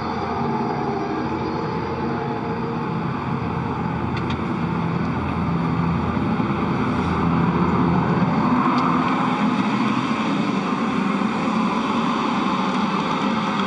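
Steady whirring hum of the International Space Station's cabin ventilation fans and equipment: an even hiss with several faint steady tones running through it.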